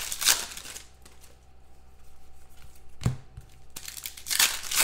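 Foil wrapper of a football trading-card pack crinkling and tearing as it is opened by hand, in short rustling bursts: at the start, about three seconds in, and again near the end.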